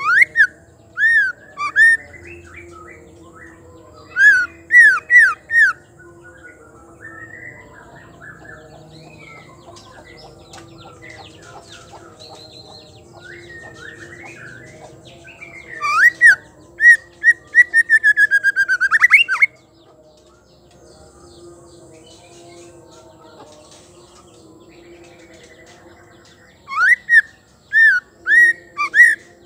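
Female white-rumped shama calling in short loud bursts of three or four quick rising-and-falling whistles, with a longer fast run of rapid notes a little past the middle.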